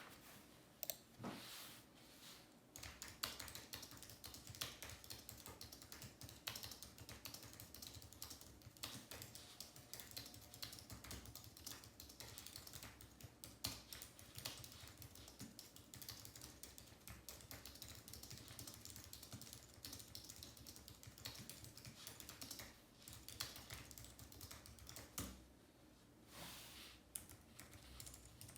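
Typing on a computer keyboard: a few separate keystrokes at first, then a steady run of fast typing, with a short pause near the end before it resumes.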